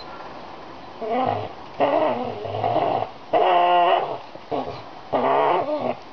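Pit bull growling and whining through a mouthful of fishing buoy as she hangs from it and tugs, in four loud wavering bursts, the third a higher, steadier whine.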